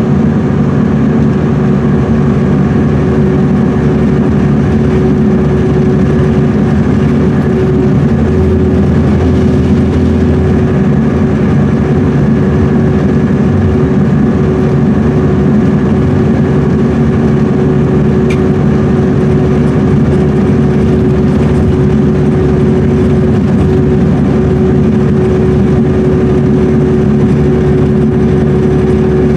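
Inside the passenger cabin of a 2010 MCI D4500CL highway coach cruising at freeway speed: its Cummins ISM inline-six diesel and Allison B500R automatic transmission running steadily with road noise, with a steady whine held throughout.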